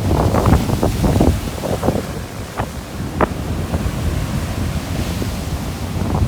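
Sea surf stirred up by a typhoon that passed the day before, with waves washing and splashing on the shore. There is a cluster of splashes in the first couple of seconds and two more a little after the middle, over a steady low rumble of wind buffeting the microphone.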